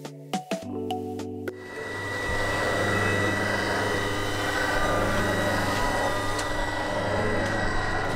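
Brief music, then from about a second and a half in a Freund Spir-A-Flow fluid-bed granulating dryer running: a steady rush of blown air with a constant high whine and a low hum underneath.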